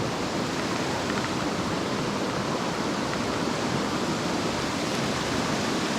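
Steady rushing of a mountain stream's flowing water, an even hiss without breaks.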